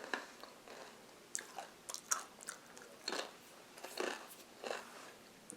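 Tortilla chips being bitten and chewed, a string of irregular crunches about a second apart.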